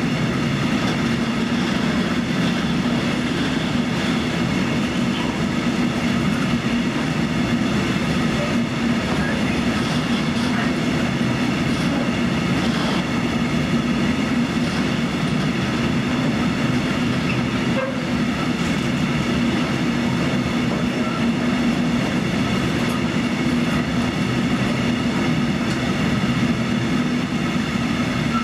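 Loaded covered hopper wagons of a heavy freight train rolling past slowly: a steady rumble of steel wheels on the rails, with light clatter over the rail joints.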